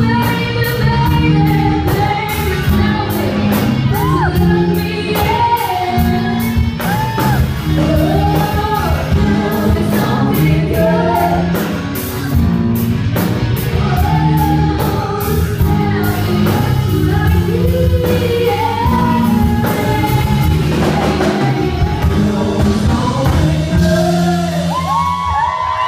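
Live rock band performing: a female lead vocalist singing over electric guitar, bass, keyboard and a drum kit keeping a steady beat.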